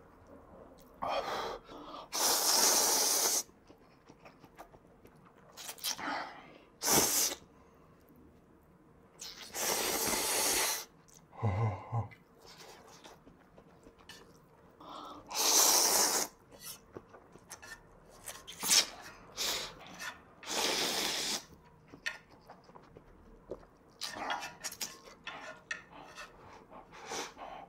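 Loud slurping of instant ramen noodles, four long slurps a few seconds apart with chewing and small clicks between, then sipping of broth near the end.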